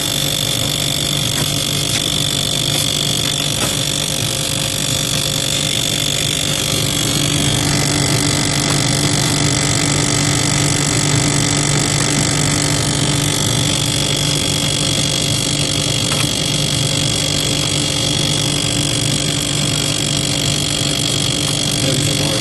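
Loud, steady mechanical drone with a high whine over it, coming from inside the freezer of a GE Profile side-by-side refrigerator. It is the strange noise the owner first tied to the ice maker, heard while the ice was being turned out.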